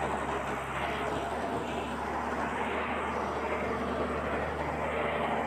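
Steady engine-like drone with a low hum from a toy excavator as it drives along.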